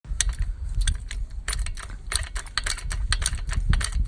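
A rapid, irregular run of sharp metallic clicks and rattles from tool and floor-jack work under a car, over a steady low rumble.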